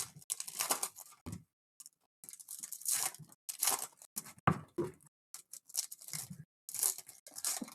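Foil trading-card pack wrappers being torn open and crinkled, in a string of short rustling, tearing bursts.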